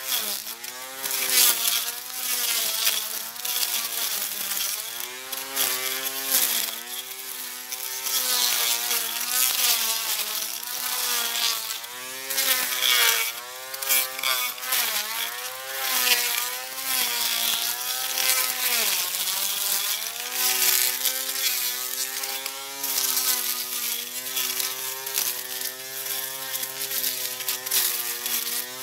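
Portable battery-powered electric grass cutter running, its motor whining with its pitch dipping and recovering over and over as it cuts grass, then holding steadier near the end.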